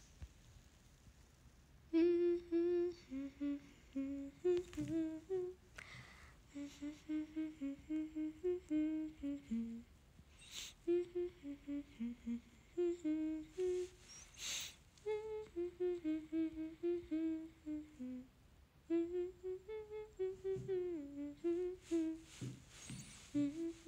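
A young woman humming a melody to herself with her mouth closed, a tune of short held notes in phrases that starts about two seconds in. Two sharp clicks come near the middle.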